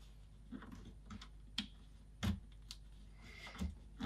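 Faint, irregular light plastic clicks and taps, about eight of them with a short rustle near the end, from fitting and handling the SD2IEC interface board on its spacer inside the Commodore 64C case.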